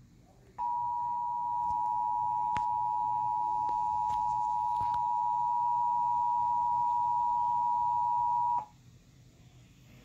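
Emergency Alert System attention signal from a TV speaker: a steady two-note electronic tone that starts about half a second in and cuts off suddenly about eight seconds later.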